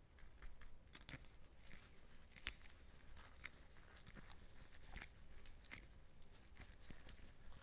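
Gloved hands kneading butter mixed with dashi fish powder: faint sticky crackles and small irregular clicks from the gloves and the paste, the sharpest about two and a half seconds in.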